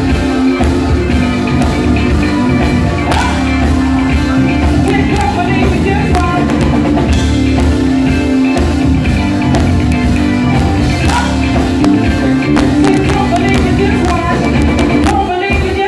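A live rock band playing, with drum kit, keyboards and electric guitar.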